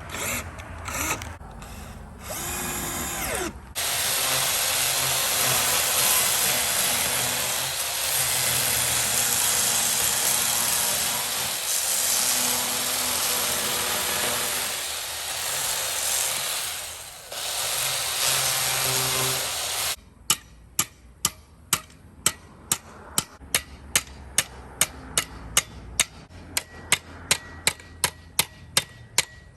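A power tool running in short bursts, then steadily for about sixteen seconds, stopping abruptly about two-thirds of the way through. After it comes a run of sharp, evenly spaced ticks, about three a second.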